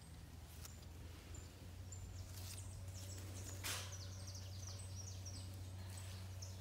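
Small birds chirping faintly, with a quick run of short high chirps in the middle, over a steady low hum.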